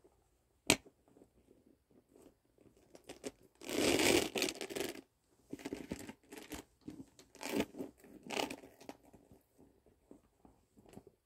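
Handling of a Louis Vuitton Passy chain bag: one sharp click about a second in, then rustling and scraping of the bag and its cloth dust bag, loudest around the middle.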